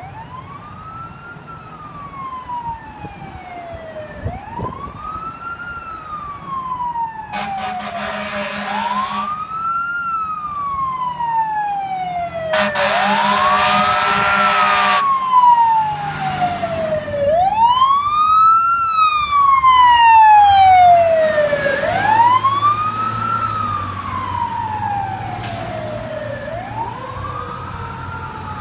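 Fire engine siren wailing, rising quickly and falling slowly about every four seconds, with two long air-horn blasts about eight and thirteen seconds in. The siren grows louder, is loudest around twenty seconds in as the truck passes, and then fades as it drives away.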